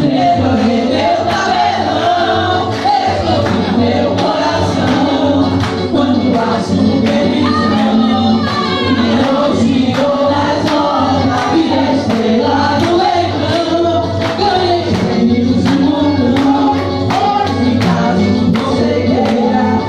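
A song with voices singing a melody over a band with a steady percussion beat.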